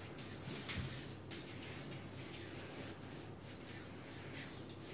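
Hands rubbing and stroking the bare skin of a thigh during a massage, pressing up the leg: faint, soft rubbing strokes.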